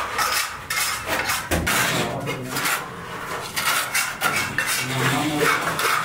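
Steel mason's trowel scraping and clinking through cement mortar and against a bucket, in short irregular strokes a few times a second.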